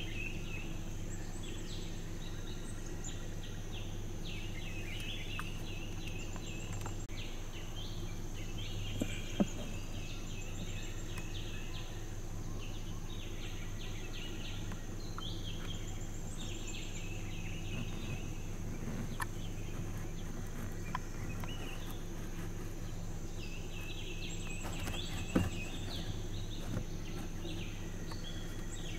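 Forest ambience: bursts of bird chirping come and go over a steady high insect drone and a low steady hum, with two sharp cracks, one about nine seconds in and one near the end.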